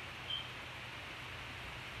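Steady background hiss with a low hum: room tone of an unattended recording. One short high-pitched chirp about a third of a second in.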